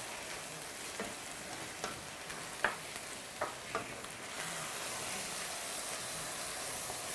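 Minced lamb with peas, carrots and pureed tomato sizzling in a stainless steel frying pan as a wooden spatula stirs it. The spatula knocks against the pan about five times between one and four seconds in.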